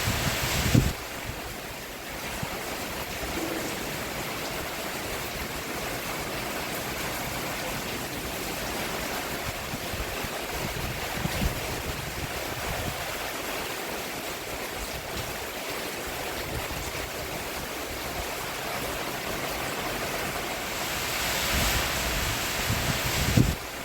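Steady rain falling on a roof, a dense even hiss, swelling louder in the first second and again for a couple of seconds near the end.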